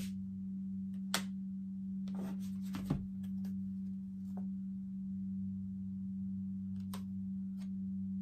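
A steady low hum, with a few soft clicks and taps as tarot cards are handled: one about a second in, a couple near three seconds and two near the end.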